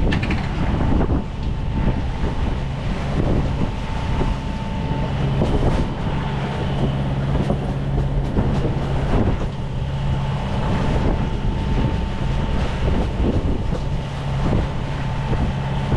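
A sailboat's 54-horsepower Yanmar diesel engine running steadily under way, with wind buffeting the microphone and water rushing along the hull.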